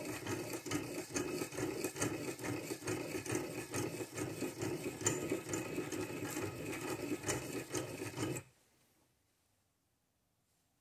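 Abrasive wheel of a piston ring filer grinding the stem end of an exhaust valve, a steady rasping with a quick run of scrapes, taking metal off the stem to open up the valve-to-lifter clearance. The grinding stops suddenly about eight and a half seconds in.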